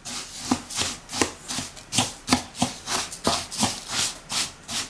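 Wooden spatula stirring and scraping dry couscous semolina around a wooden bowl, a gritty scrape about three times a second.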